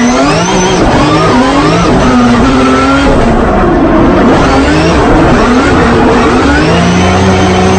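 Drift car engines revving hard, the pitch climbing and dropping again and again as the throttle is worked, with more than one engine note overlapping at times.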